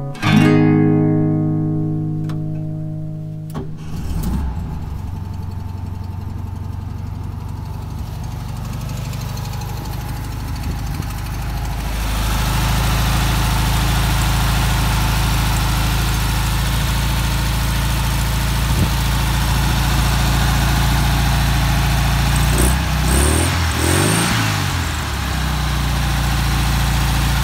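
Acoustic guitar music fades out, then the air-cooled 36 hp flat-four engine of a 1958 VW Beetle comes in about four seconds in and idles steadily. It gets louder around twelve seconds and is revved briefly a couple of times near the end.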